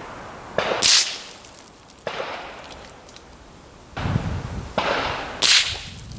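.22 LR rifle shots at paintball targets: a string of sharp cracks, each trailing off, with the two loudest about a second in and about five and a half seconds in.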